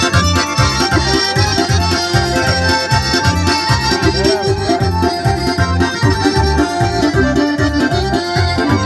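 Live piano accordion and electronic keyboard playing traditional dance music together through a PA speaker, with a steady fast beat in the bass.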